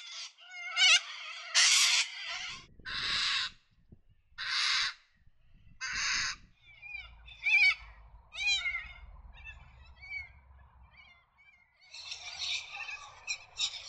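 Little corellas calling: a run of harsh, half-second screeches about every one and a half seconds, with softer, wavering pitched calls in between and a cluster of harsh calls again near the end.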